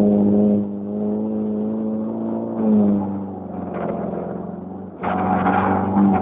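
Moskvitch car engine running steadily under way, heard from inside the cabin. The note eases off slightly about three seconds in and grows louder about five seconds in.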